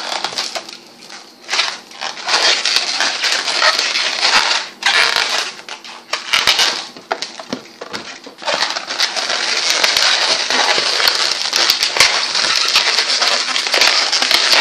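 Latex twisting balloons rubbing and crackling in the hands as they are twisted and joined, in uneven spells at first and almost continuous from about halfway through.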